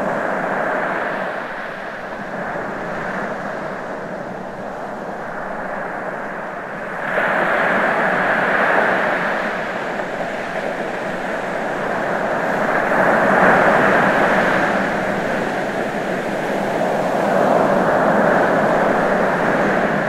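Ocean waves washing onto the shore in a steady rush, swelling louder every few seconds as each wave breaks, with a sharp surge about a third of the way in.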